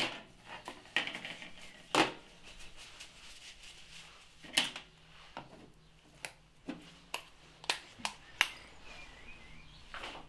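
A string of about a dozen light knocks and clicks as parts are handled on a metal tool trolley: a coolant pipe is set down and the lid of a tub of rubber grease is pressed shut.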